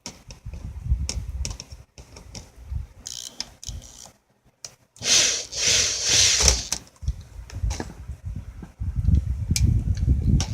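Power drill run in short bursts, backing screws out of a box fan's housing, with clicks and rattles of the parts being handled. A longer, louder run comes about five seconds in.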